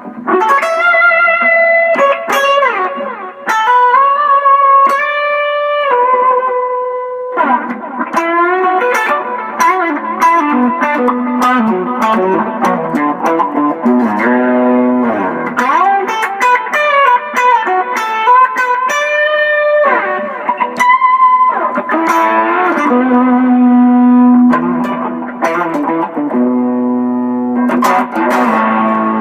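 Carvin AE185 semi-hollow electric guitar on its bridge pickup, driven through a Pigtronix Aria Disnortion overdrive pedal into a Peavey Backstage 50 solid-state amp. It plays picked single-note lines and held notes, with fuller chord-like passages in the second half.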